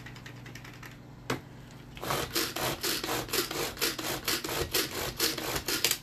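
Tupperware pull-cord chopper chopping cucumber: a single knock a little over a second in, then from about two seconds in a fast run of cord-pull whirring strokes, about five a second.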